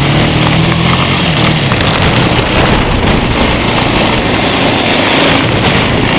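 Strong wind gusts buffeting the microphone, with an ATV engine running underneath, its pitch shifting in the first couple of seconds before the wind swamps it.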